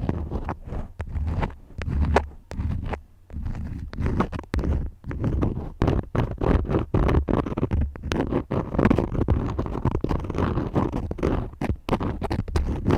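Crayons scratching and scraping close to the microphone in quick, irregular strokes, with many small taps and a low rubbing rumble.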